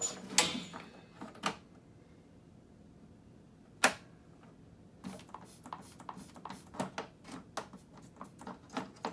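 Plastic clicks and knocks from hands working on a single-stage snowblower: a few separate sharp knocks, then a quick irregular run of clicks.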